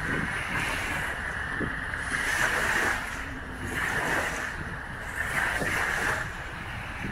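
Small wind-driven waves washing onto a sandy shore, swelling and easing every second or two, over a low rumble of wind on the microphone.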